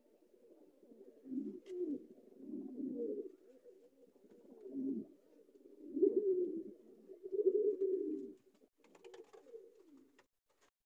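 Domestic pigeon cooing: a run of low coos in repeated phrases, one every second or two.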